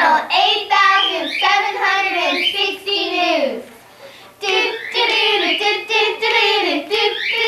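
Several young girls singing together, breaking off for a moment about halfway through and then singing on.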